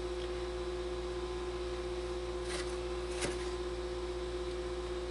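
Steady appliance-like hum with two fixed pitches, and two light knife clicks on a plastic cutting board a little past halfway, the second sharper.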